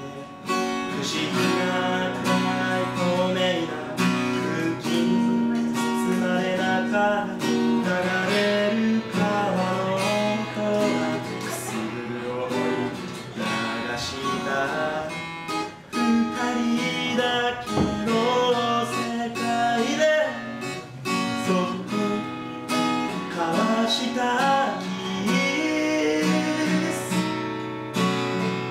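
Acoustic guitar played live, strummed and picked in a continuous instrumental passage with changing chords and melody notes.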